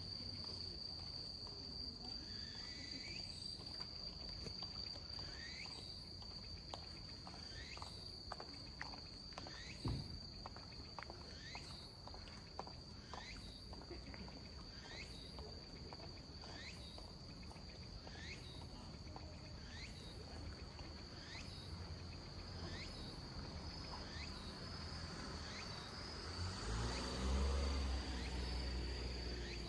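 Tsukutsuku-boshi cicada (Meimuna opalifera) singing its repeated phrases slowly, about one rising phrase every second and a quarter, over a steady high insect trill. The slow tempo is common in autumn and may be the sign of a weakened late-season insect. A low rumble rises near the end.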